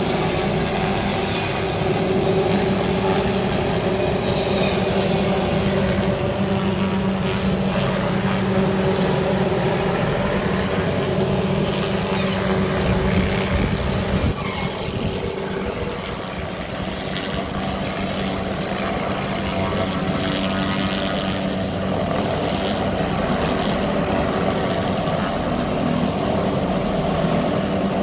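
Helicopter hovering while running a hanging tree-trimming saw of about ten circular blades driven off its engine. Rotor and engine make a steady drone with a few steady tones, dipping slightly a little past halfway.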